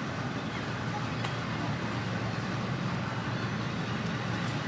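Steady outdoor ambience of a beachfront street: an even low rumble, with a faint click about a second in.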